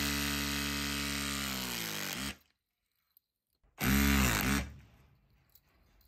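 Motor and hydraulic pump of a Klauke EK-WF-120-ML battery-powered hydraulic ferrule crimper running as it drives the jaws through a crimp. The pitch sags just before it stops about two seconds in. A second short run follows about four seconds in.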